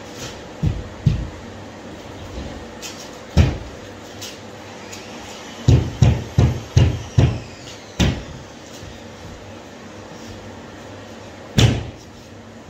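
Dull knocks and thumps of a GIB plasterboard sheet being pushed and knocked into place against the wall framing: single knocks early on, a quick run of about six a little past the middle, and one more near the end.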